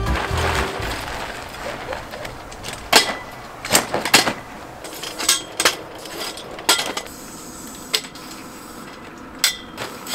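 Pop-up canopy's folding frame clacking as it is pulled open and its legs raised and locked: about eight sharp knocks and clicks at irregular intervals.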